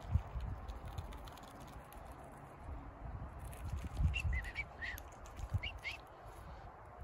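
A bird chirping a string of short, high notes about four seconds in, for a couple of seconds. Low thumps come at the start and again about four seconds in.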